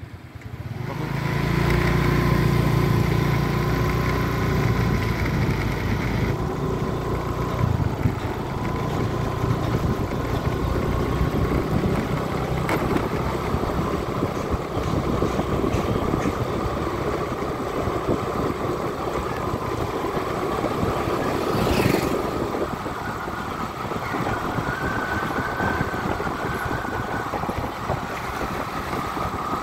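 Motor vehicle engine running steadily while driving along a road, with road and wind noise. It builds up over the first second or two. There is a brief whoosh about three-quarters of the way in.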